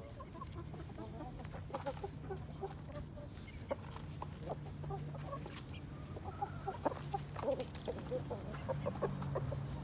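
Chickens clucking in short, scattered notes, with a low steady hum underneath.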